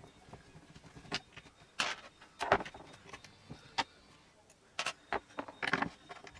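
Irregular sharp clicks and knocks of metal hardware and tools being handled while a skateboard truck is unbolted from the deck, about half a dozen scattered clinks with the loudest about two and a half seconds in.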